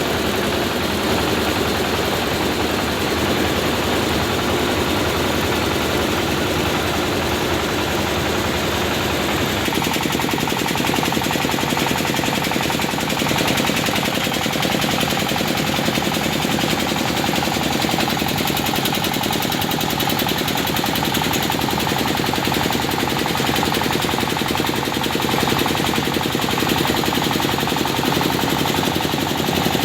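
Engine-driven rice huller running steadily, a dense rapid rattle over the engine's drone. The sound changes and gets a little louder about ten seconds in.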